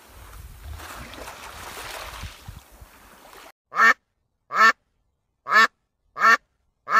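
A faint background hiss and rumble for about three and a half seconds, then five short, loud calls from an animal, each a fraction of a second long and spaced less than a second apart, the last at the very end.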